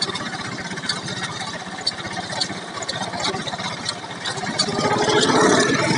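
Mahindra mini tractor's diesel engine running steadily while pulling a spring-tine cultivator through tilled soil, with sharp clicks now and then. It gets louder about four and a half seconds in.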